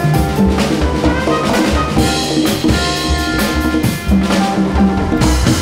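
Small jazz band playing live: congas and drum kit over upright bass, with trumpet.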